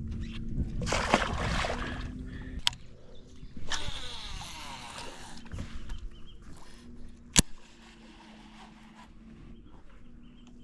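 A barramundi splashing as it is dropped back into the water, then a baitcasting reel's spool whirring through a cast, a sharp click as the reel is engaged, and the reel being wound in. A steady low hum runs underneath.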